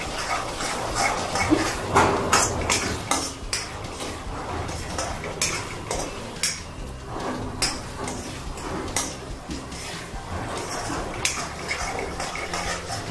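Steel spatula scraping and clinking against a metal kadhai in quick, irregular strokes as chopped onions are stirred while they sauté in oil.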